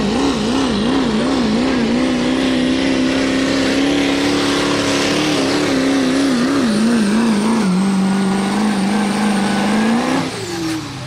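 Modified diesel pickup truck at full throttle pulling a sled, its engine note wavering up and down and then holding steady, with a high turbo whistle over it. About ten seconds in, engine and whistle fall away sharply as the driver lets off at the end of the pull.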